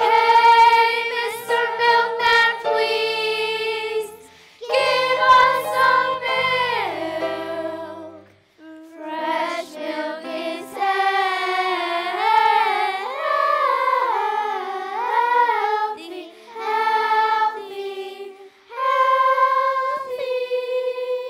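A children's chorus singing together, in several sung phrases with short pauses between them.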